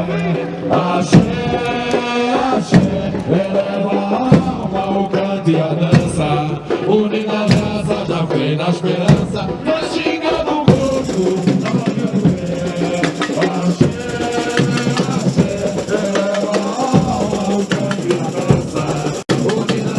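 Samba school percussion band (bateria) playing a driving samba rhythm: dense, regular drum and percussion strikes.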